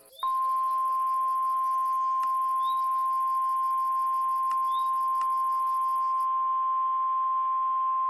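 NOAA Weather Radio 1050 Hz warning alarm tone: a single loud, steady, high-pitched tone over faint radio hiss, signalling that a warning bulletin follows.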